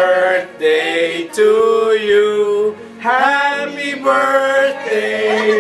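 A man singing a slow melody with long held notes.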